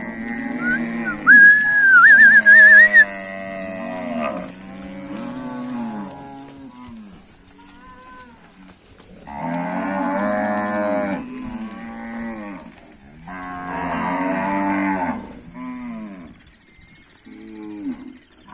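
Herd of cattle mooing, several animals calling over one another, with two long loud moos in the second half. A loud, high warbling whistle sounds for about two seconds near the start.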